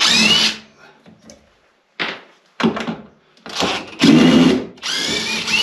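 Several short bursts of scraping with squeaky rising tones in them. The loudest are at the very start and about four seconds in.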